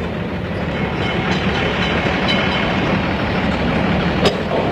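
Motor tram running along its rails: a steady rumbling running noise, with one sharp click near the end.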